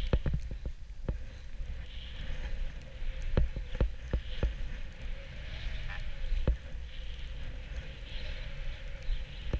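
Snowboard riding down a chopped-up ski run: the board's edge scraping over the snow in swells that come and go with each turn, with a low wind rumble on the camera's microphone. Several sharp knocks as the board bumps over ruts, in a quick cluster a few seconds in.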